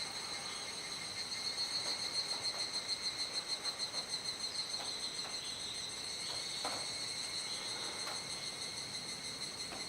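Chorus of cicadas singing at dusk: a steady high-pitched drone with a quick pulsing swell in the middle.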